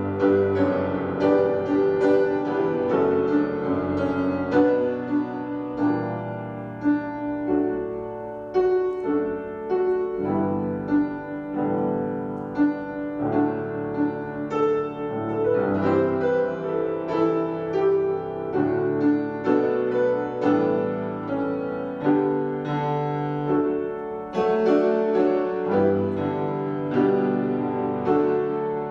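Solo piano playing a slow, gentle piece, with chords and melody notes struck one after another.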